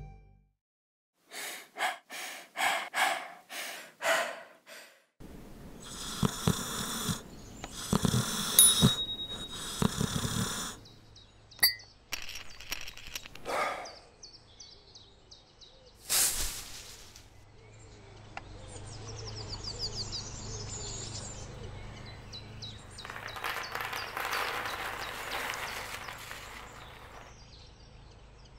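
Short breathy sounds and snoring, with a few knocks along the way. Birds chirp through the second half. Near the end, dry dog kibble pours out of a plastic bowl onto a pile, rattling.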